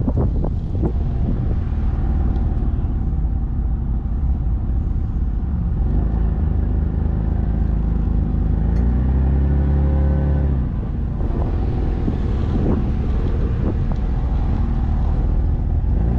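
Jeep's engine running at low revs as it crawls over sandy dirt off-road terrain, with tyre and wind noise on the microphone. A little past halfway the engine pulls harder for a moment under load, then settles back.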